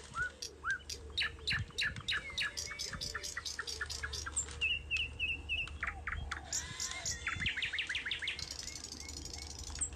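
Songbirds chirping: rapid runs of short, sharp notes, one run after another.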